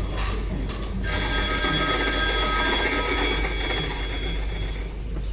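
Telephone ringing: a steady ring made of several high tones, with a short break about a second in, stopping shortly before the end.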